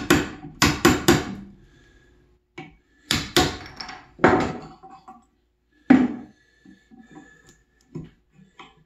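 Claw hammer striking the handle of a Stanley bench chisel to chop waste out of a joint in pine: a quick run of about four blows in the first second, then a few more spaced-out knocks. Near the end come lighter clicks and scrapes as the chisel is worked by hand.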